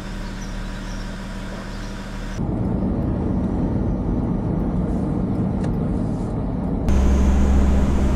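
Off-road 4x4 vehicles' engine and road noise in three cut-together pieces. First comes a steady engine hum, then rougher driving noise inside the cab from about two and a half seconds in. Near the end it changes abruptly to a louder, steady low engine drone.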